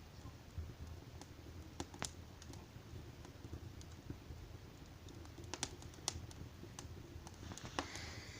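Wood fire crackling, with scattered sharp pops at irregular intervals over a faint low rumble.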